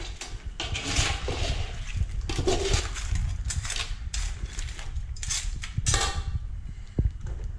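A metal slotted spoon stirring cooked crab pieces in a large metal pot, scraping the pot's sides and clattering the shells in irregular strokes.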